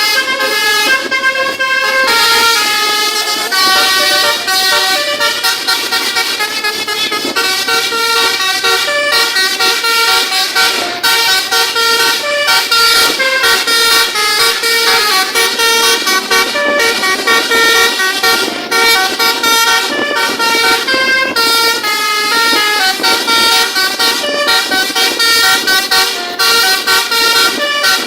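Bus telolet horn, a multi-tone air horn, playing a fast melody of stepped notes that changes pitch every fraction of a second and goes on without a break.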